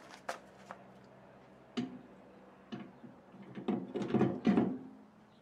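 Ford Model A wire-spoke wheel being fitted onto the car's hub by hand: scattered light knocks and clicks, then a cluster of louder metal clunks around four seconds in as the wheel is set onto the wheel studs.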